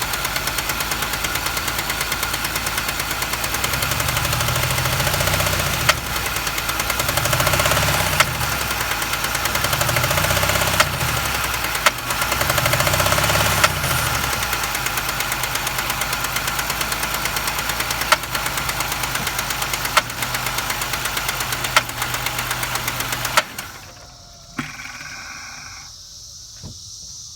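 GM 3800 Series II V6 running with the valve cover off, with a fast, even metallic rapping, like two pieces of metal hitting each other. The revs are raised four times in quick blips, and the engine shuts off near the end. The owner suspects a wiped cam lobe or a collapsed lifter on the #1 exhaust valve, whose rocker is not moving.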